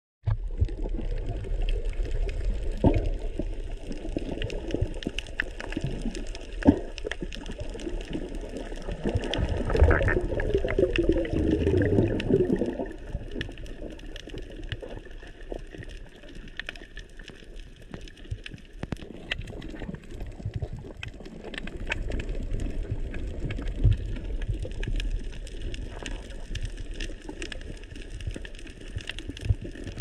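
Water heard underwater: a muffled rush with a low rumble and scattered sharp clicks. About ten seconds in, a louder bubbling gurgle lasts a couple of seconds.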